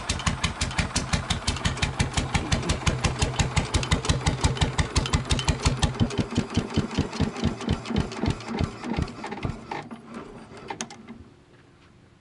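GM 1-71 single-cylinder two-stroke diesel running with an even, sharp exhaust beat, roughly seven beats a second. About six seconds in it is shut off, and the beats slow and spread out until the engine coasts to a stop near the end.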